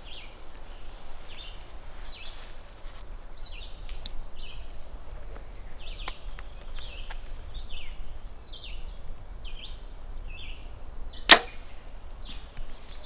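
A compound bow shot: one sharp crack about eleven seconds in, the loudest sound. A bird calls over and over with short high chirps.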